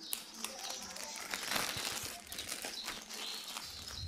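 Thin plastic bag crinkling and rustling as it is twisted shut and tied at the neck, with scattered small crackles and a louder stretch about one and a half seconds in.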